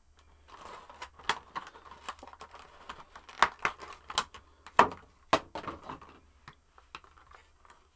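Box of a collectible figure being opened and unpacked by hand: irregular clicks, taps and crinkles of the packaging, the loudest few a little past the middle.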